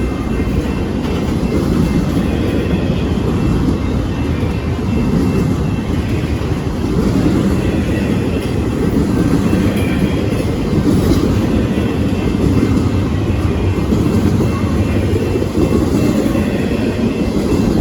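Freight train rolling past, a steady heavy rumble of its wheels on the rails.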